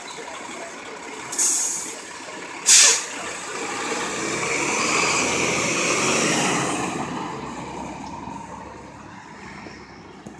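Labrie Top Select recycling truck: two short hisses of air from the air brakes, then the engine rises in level as the truck pulls away and fades into the distance.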